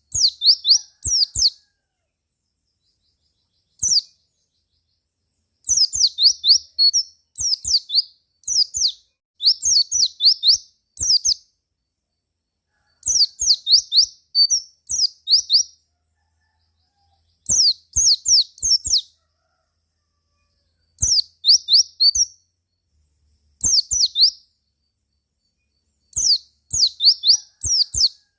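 White-eye (pleci) singing: short bursts of quick, high, downward-sweeping chirps, each burst about a second long, repeated every few seconds with silence between.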